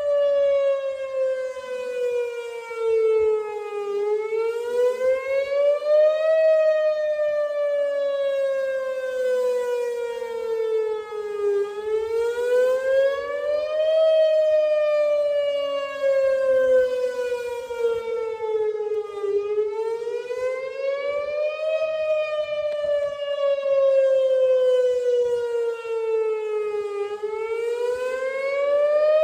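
Outdoor warning siren sounding a wail during an emergency warning system test. The pitch climbs over about two seconds, then slides down over about five, and the cycle repeats roughly every eight seconds.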